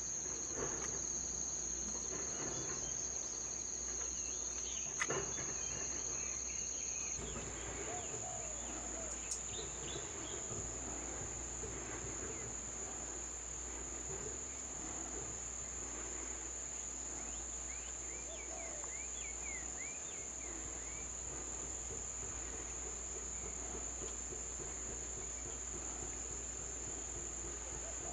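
Steady high-pitched buzzing of insects, one unbroken tone that steps slightly higher about seven seconds in.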